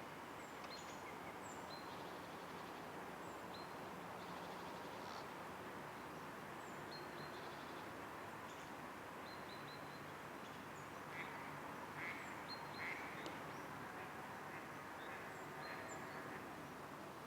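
Outdoor ambience with steady background noise and small birds chirping briefly and repeatedly in high notes. A few louder, harsher calls come in a cluster about eleven to thirteen seconds in.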